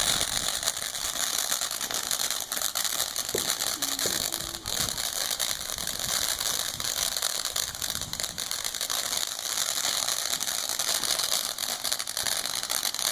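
A firework burning and throwing off sparks, with a steady, dense crackling hiss.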